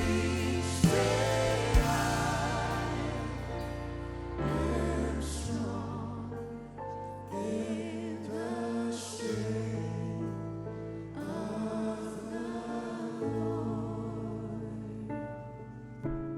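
Gospel worship music: a choir singing a slow song over sustained bass chords, growing softer toward the end.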